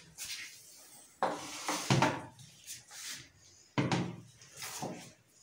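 Hand sweeping and rubbing flour across a kitchen countertop: about four rough swishing strokes, the first beginning about a second in, two of them starting with a sudden knock of the hand on the counter.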